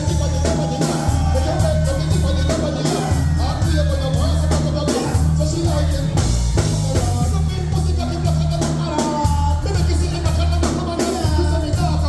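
Loud dancehall riddim playing with a heavy, pulsing bass line, and a voice singing or chatting over it.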